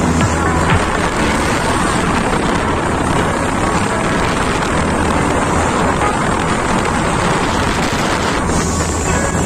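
Steady wind blowing on a phone microphone aboard a moving boat, with the boat's engine droning low underneath and water rushing along the hull.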